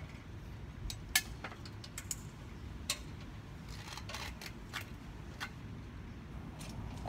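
Scattered light clicks and taps of small pieces being handled by hand, the sharpest about a second in, over a low steady background rumble.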